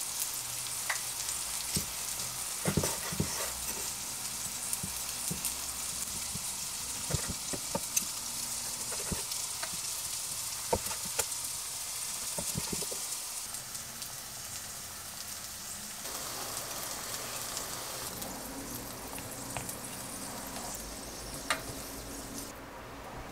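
Steady frying sizzle from a pan, with scattered sharp knife clicks and taps on a wooden cutting board as a thick grilled steak is sliced. The sizzle eases off about two-thirds of the way through, leaving a low hum and a few clicks.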